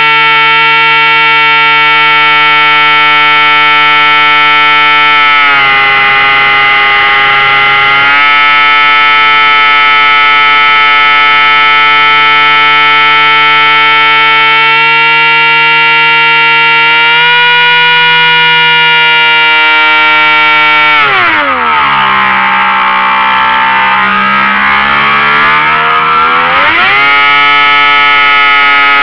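Seamaster model aircraft's motor and propeller running with a steady whine, heard up close through the onboard FPV camera. Its pitch dips briefly early on; about three quarters of the way through it falls steeply as the throttle is pulled back, then climbs back up after five or six seconds.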